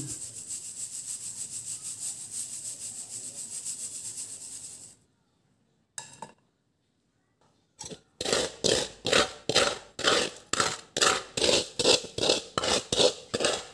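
Dried turmeric granules shaken and rubbed across a wire-mesh sieve, making a rhythmic scraping rasp. It stops for about three seconds midway, then comes back as louder, separate strokes about two a second.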